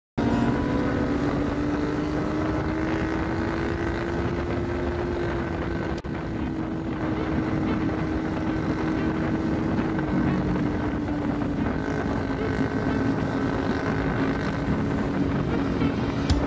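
Motorcycle engine running steadily, with wind noise on the microphone; the engine note dips slightly about ten seconds in.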